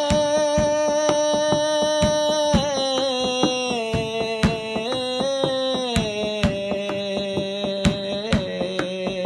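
A man singing one long drawn-out note of a Hindi/Urdu ghazal-style song, his voice stepping down in pitch several times, over percussion strokes.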